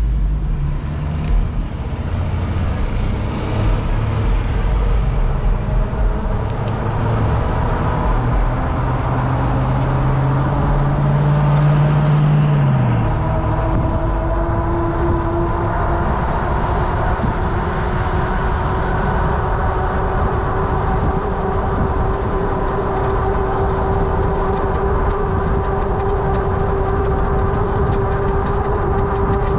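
Fat-tire e-bike under way: a steady motor and tire hum over road and wind noise. A low hum rises slowly in pitch and falls away about halfway through, and a higher hum carries on after it.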